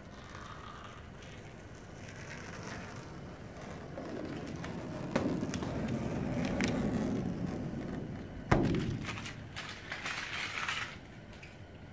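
Excess strip of vinyl wrap being peeled off an airplane's painted side and bunched up by hand: a crackling, crinkling rustle that builds through the middle, with a sharp snap about two thirds of the way through.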